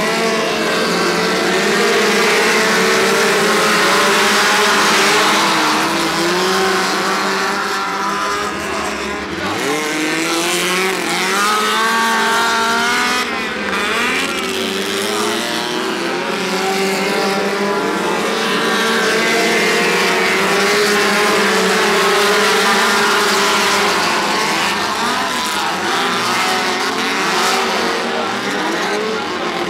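Several small race cars racing on a dirt oval, their engines revving up and down in overlapping rising and falling notes as they lap.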